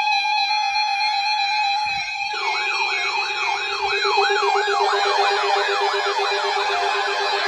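Electronic alert tones: a steady tone, joined about two seconds in by a fast warbling siren sweep, about three cycles a second, and a lower steady tone.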